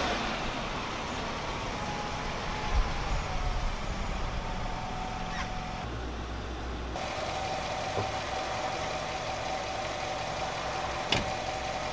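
Car engine running steadily with a low rumble; the sound shifts about seven seconds in to a steadier hum with a thin held tone. A single sharp click comes near the end.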